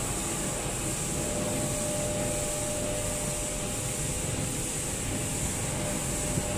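Steady hum and hiss of running machinery, with a faint high whine and a few faint steady tones underneath.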